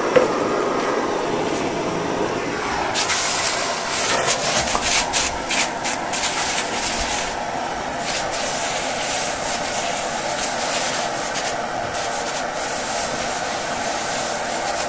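Handheld gas torch burning with a steady roar. From about three seconds in, a crackling sizzle joins it as a wet rag quenches the torch-heated steel panel, shrinking the stretched metal. The sizzle is strongest in the first few seconds and thins out later.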